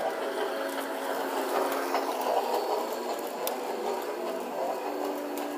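Toy Christmas train running around its track: the steady whir of its small motor with the rattle of its wheels and gears.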